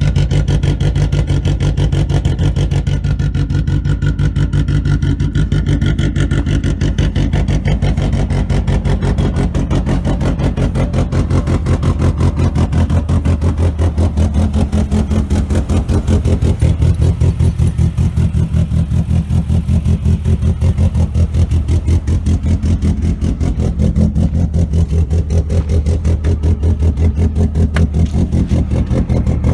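Honda H22A 2.2-litre four-cylinder engine running at a steady idle just after a cold start, with an even, rhythmic pulse.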